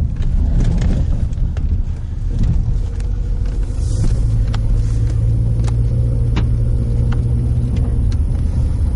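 Car running at low speed, heard from inside the cabin: a steady low rumble of engine and road noise, with a few light clicks and knocks.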